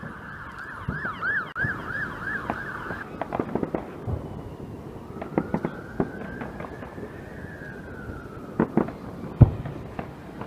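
Fireworks banging at irregular moments, several in quick clusters, the loudest bang near the end. Under them runs a steady whine that warbles quickly for the first few seconds, then a tone that slowly rises and falls.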